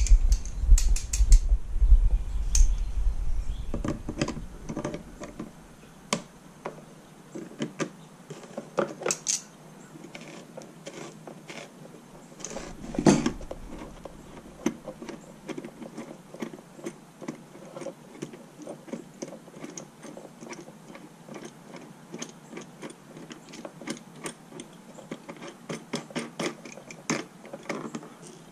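Irregular clicks, taps and clatter of hand assembly work on a quad's parts, with a low rumble in the first few seconds and a single louder knock about halfway through.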